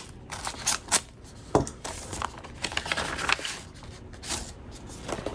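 A paper envelope being slit open with a knife blade and its contents handled: a series of short paper scrapes and rustles, with a soft knock about one and a half seconds in.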